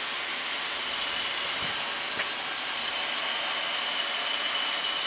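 Steady flight-deck hum of a parked Boeing 737-800, from air-conditioning and equipment cooling fans, with a faint high whine and a couple of soft clicks.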